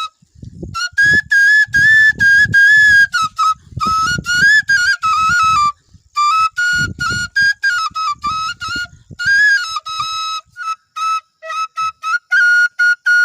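Bansuri (bamboo flute) playing a high melody in short phrases, the pitch stepping up and down with brief breaks between phrases, with low puffs of breath noise under the notes.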